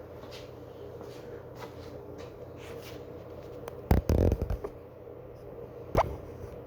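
Evergo 36-inch spinner ceiling fan motor running with a steady hum and faint scattered ticks. A cluster of loud knocks comes about four seconds in, and a single sharp click about two seconds later.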